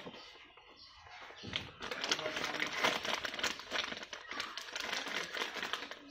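Rustling and crinkling as a fabric insulated bag and the things inside it are handled, with many small clicks and scrapes; it grows louder about a second and a half in.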